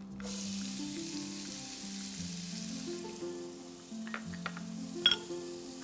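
Diced onion dropped into hot oil in a frying pan, starting a sudden sizzle that eases into a steady frying hiss. A few light clicks come about four to five seconds in.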